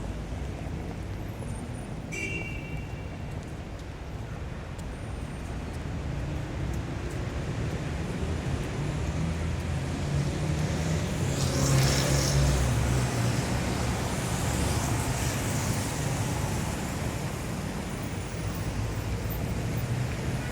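City street traffic: a steady rumble of engines and tyres that swells to its loudest about halfway through, then eases off. A brief high tone sounds about two seconds in.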